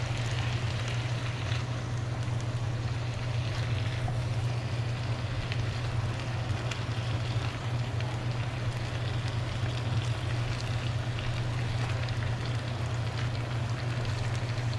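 Chicken fajita filling of chicken, peppers and onions sizzling steadily in a pan on high heat, over a constant low hum.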